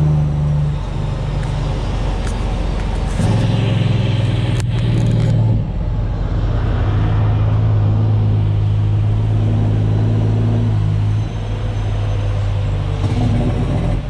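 Semi truck's diesel engine running on the road, heard from inside the cab. The engine note steps to a new pitch several times with brief dips in loudness, as with gear changes, and there is one sharp click partway through.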